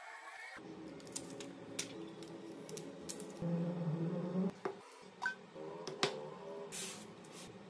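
Scattered sharp clicks and taps of hands handling an OPPO smartphone, pressing its back cover into place. Soft background music with sustained tones plays underneath.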